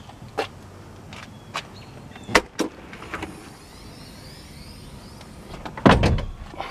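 A handful of short clicks and knocks from handling in a car's interior, two sharp ones close together about two and a half seconds in, then a heavier, deeper thump near the end.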